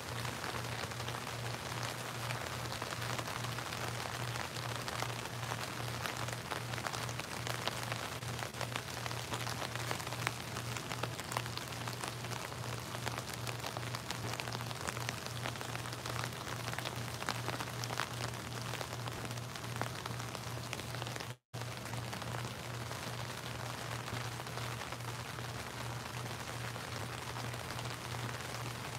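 Rain pouring steadily: a dense, even hiss dotted with countless individual drop taps. The sound cuts out for an instant about three-quarters of the way through.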